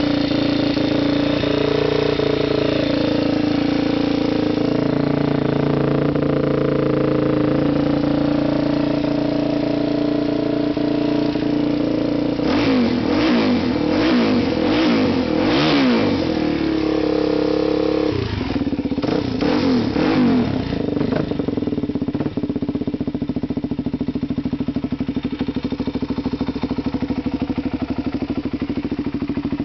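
2000 Suzuki DR-Z400E's single-cylinder four-stroke engine, stock but with the exhaust baffle removed, idling steadily. About twelve seconds in the throttle is blipped about five times in quick succession, then after a short pause a few more quick revs, and it settles back to idle.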